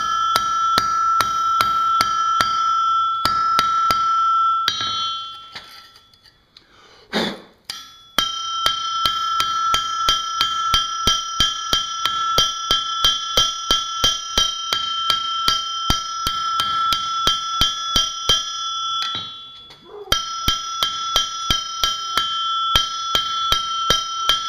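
Hand hammer forging a bright-orange-hot blade, made from an old high-carbon steel file, on a steel anvil. It strikes in quick steady runs of about three to four blows a second, and the anvil rings a clear high tone under each blow. There are two short pauses between the runs.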